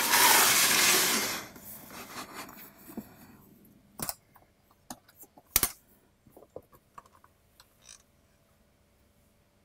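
An aluminium tool case slid and turned on a wooden tabletop, a loud scrape that fades within about three seconds. Then its metal latches snap open and the lid is handled, a run of sharp clicks, the loudest about halfway through.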